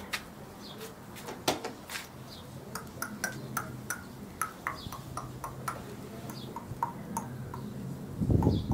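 Meat grilling on a charcoal barbecue, crackling with a scatter of sharp pops and short high pings. A louder low rumble of knocks comes in near the end.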